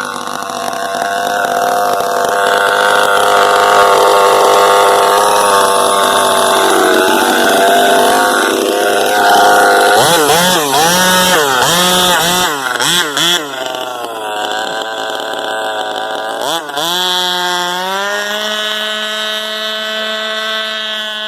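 Small two-stroke weed-eater engine on a little race car running hard. It revs up and down in quick blips about halfway through, then climbs and holds a steady high pitch near the end.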